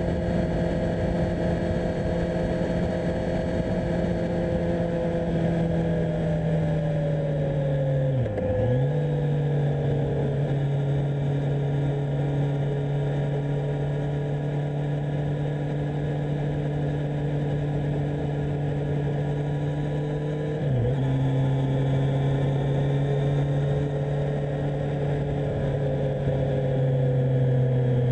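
2018 Kawasaki Z1000SX's inline-four engine running steadily under way, heard from on the bike. About 8 seconds in and again about 21 seconds in, the note dips briefly and comes back lower, as on an upshift.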